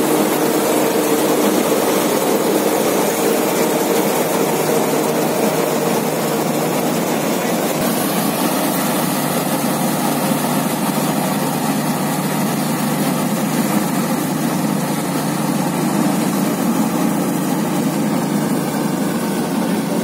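Swaraj 8100 EX combine harvester running steadily under load while cutting wheat, its engine and machinery making one continuous, loud drone; the held tones in it become less distinct partway through as the machine moves off.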